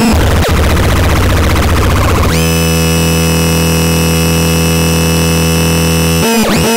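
Vapetron Megaloman model 23 electronic noise instrument sounding a harsh, gritty buzz. A little over two seconds in it switches to a loud, steady buzzing drone with many overtones. Near the end it breaks into a fast, repeating pattern of swooping tones.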